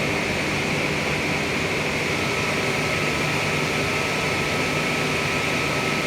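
Steady drone of pipe rolling mill machinery: an even, unbroken hiss with a low hum underneath. A thin steady whistle joins about two seconds in.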